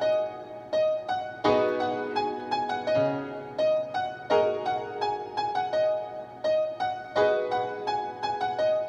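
Piano-style keyboard melody for a beat being built: a chord about every three seconds under a repeating figure of single notes, with no drums.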